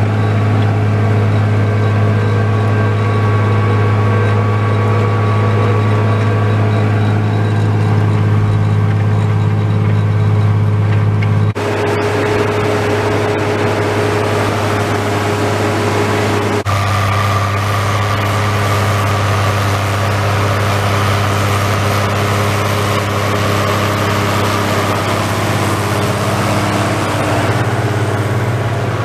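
Case IH 1455 XL tractor's six-cylinder diesel engine running steadily under load while pulling a plough through the soil. The sound changes abruptly twice, about 11 seconds in and again about 17 seconds in.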